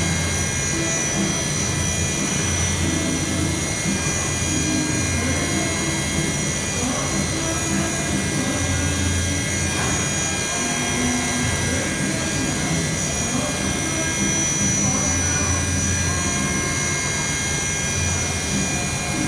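DMG Mori multi-axis CNC machining centre running: a steady high whine and hiss, with low hums that start and stop every few seconds.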